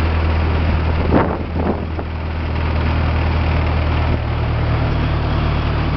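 Small boat's engine running steadily under way, with water and wind noise over it. Two brief louder noises come about one and two seconds in, and the engine note rises slightly soon after.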